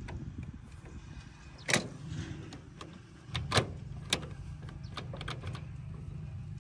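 Fiat 480 tractor's gear levers being worked, giving a few sharp metallic clicks and clunks about two, three and a half and four seconds in, over a steady low rumble.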